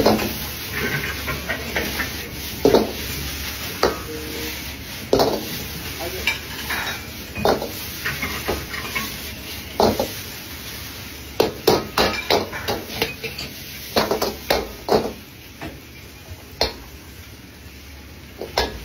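Dishes and utensils clinking and knocking irregularly, a dozen or more sharp strikes, bunching into quicker runs in the second half.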